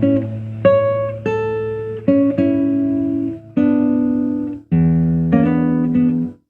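Solo acoustic guitar played fingerstyle: single plucked notes ring out over sustained low bass notes. The sound breaks off briefly twice, about two thirds of the way through and again at the very end.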